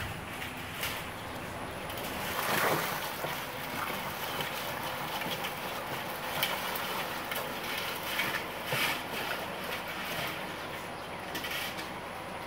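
Boiled crawfish and vegetables pouring out of a perforated aluminum boil basket onto a newspaper-covered table: a continuous rushing, rustling clatter with short bursts, the biggest surge about two and a half seconds in.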